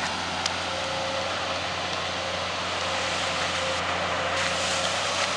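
Engine of an amphibious backhoe dredger running steadily, with a faint click about half a second in.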